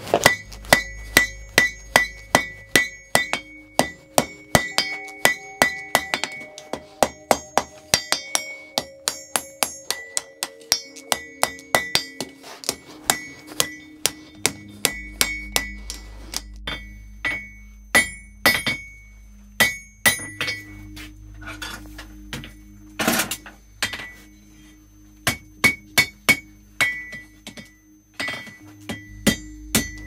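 Blacksmith's hammer striking a red-hot iron bar on an anvil, a steady run of blows about two to three a second with a clear ringing from the anvil, broken by short pauses. The end of a door latch bolt is being drawn thin on the anvil's edge and bent over.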